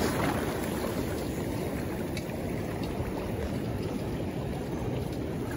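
Steady rush of a river's current flowing over a shallow, rippled stretch.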